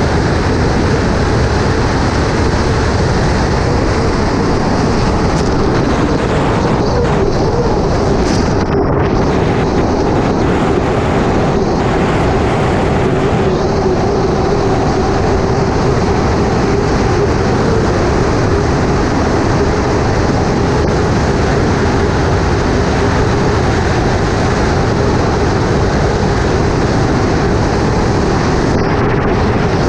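Unlimited hydroplane's turbine engine running steadily at speed, heard onboard with a constant whine over heavy wind and water noise. The upper part of the sound flickers a few times between about 7 and 13 seconds in.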